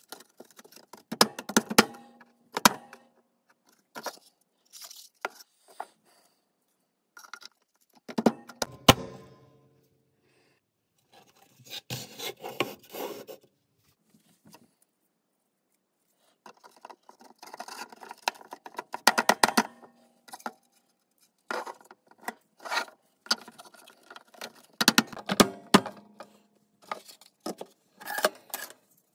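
Thin laser-cut wooden panels being fitted together by hand: clacks, knocks and scrapes as tabs are pushed into slots and pieces slide against each other. They come in bursts with quiet gaps between.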